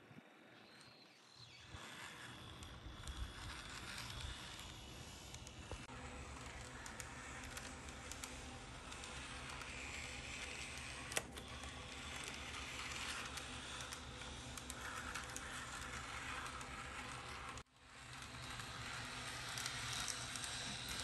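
Model tram running along a diorama track: a steady rolling rattle with a low motor hum, building up over the first two seconds, with one sharp click about eleven seconds in. The sound drops out briefly a few seconds before the end.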